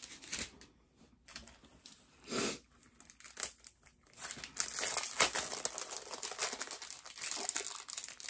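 Clear plastic packaging of a diamond painting kit crinkling as it is handled. There are scattered rustles at first, then near-continuous crinkling from about halfway through.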